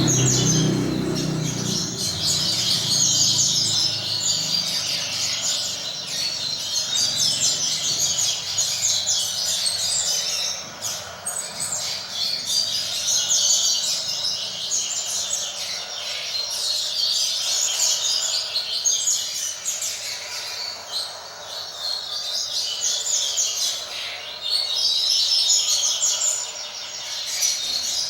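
Double-collared seedeater (coleiro) song: repeated phrases of fast, high twittering notes, each a few seconds long with short pauses between. A low rumble fades out in the first couple of seconds.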